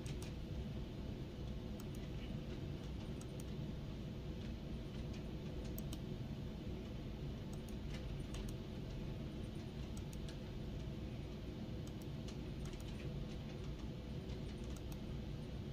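Scattered, irregular clicks of a computer mouse and keyboard over a steady low hum.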